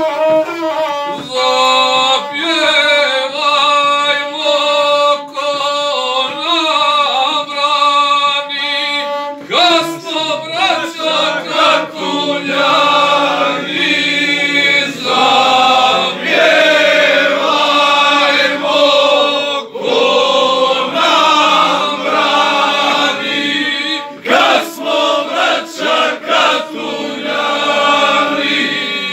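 A male guslar sings an epic song in the chanted style, accompanying himself on the gusle, a single-string bowed folk fiddle.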